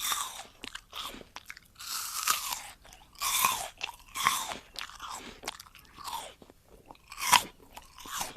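Close-miked chewing of juicy fruit: a run of wet, crunchy bites and chews in separate bursts, the loudest a little past seven seconds in.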